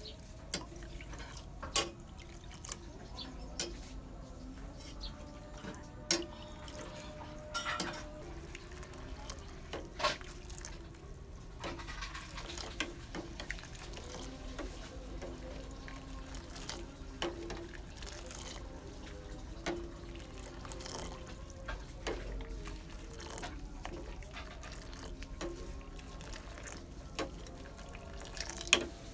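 Coconut milk being stirred with a metal ladle in a stainless steel saucepan: liquid sloshing, with scattered sharp clinks of the ladle against the pot, the loudest near the end.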